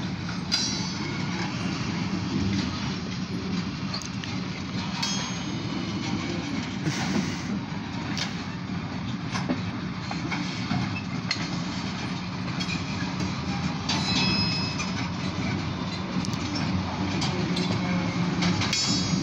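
Slow-moving freight cars of a short Oil Creek & Titusville freight train rolling past, with a steady rumble and scattered clicks from the wheels on the track. Several brief high-pitched wheel squeals are heard.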